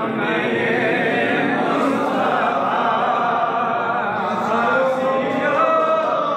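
A crowd of men singing a devotional chant together, many voices overlapping.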